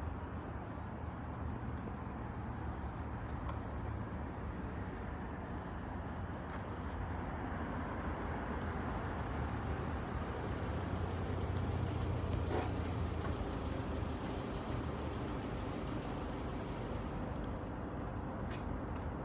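Road traffic rumbling steadily, with vehicles running and idling near the lowered barriers and swelling a little in the middle. A single short click about twelve and a half seconds in.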